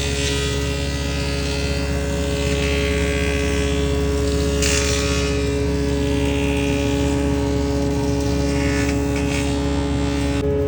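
A 14-inch double woodworking machine running steadily: a constant motor hum with a few short swells of hiss.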